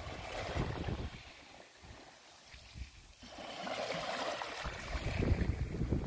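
Small ocean waves washing onto a sandy beach, with wind buffeting the microphone. The wash dies down about a second and a half in and builds up again after about three seconds.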